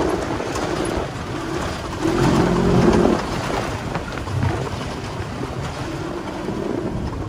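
Polaris RZR 1000 side-by-side running along a gravel trail, its engine drone mixed with steady wind noise on the microphone; the engine note swells about two seconds in and again near the end.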